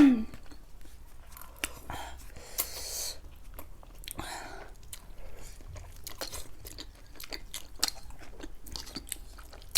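A person chewing food close to the microphone, with many small wet mouth clicks and an occasional crunchy bite.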